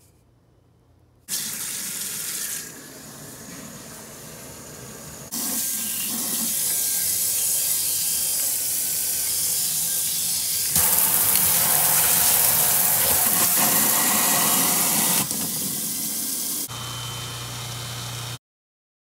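Water running from a kitchen faucet into a sink, starting about a second in, its level changing abruptly a few times. Near the end a low steady hum sounds along with the running water.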